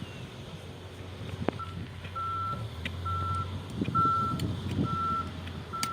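Reversing alarm on a construction machine beeping at a steady pitch about once a second, starting about a second and a half in, over the machine's running engine. A sharp knock comes just before the beeping starts and another near the end.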